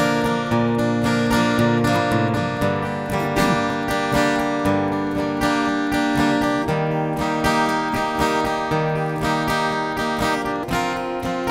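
Steel-string acoustic guitar strumming the introduction to a gospel song.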